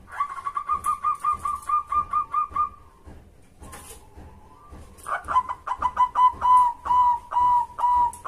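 Zebra dove (perkutut) cooing in two rapid series of short, clipped notes, about four or five a second. The second series slows, with longer drawn-out notes near its end.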